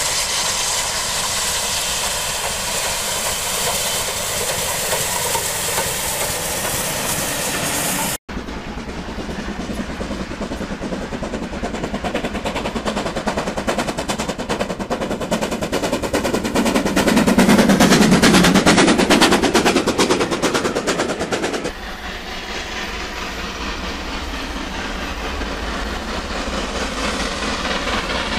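Steam locomotives passing under power, their exhaust a rapid run of beats. The loudest train swells and fades about two-thirds of the way through. The sound changes abruptly twice where clips of different trains are cut together.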